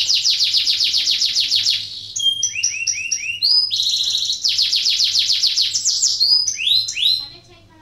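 Domestic canary singing: a fast rolling trill, then a run of short separate notes, then another fast rolling trill and a few more notes, stopping about seven seconds in.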